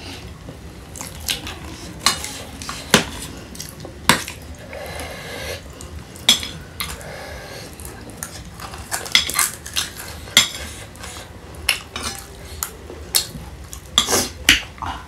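Metal spoons clinking and scraping against ceramic bowls and plates while eating, a series of irregular sharp clinks.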